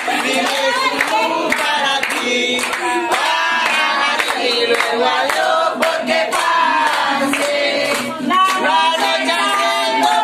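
A group of adults and children singing a birthday song together in Spanish, clapping along in time.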